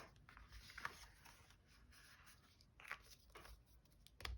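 Near silence with a few faint, brief rustles and taps of paper card being handled.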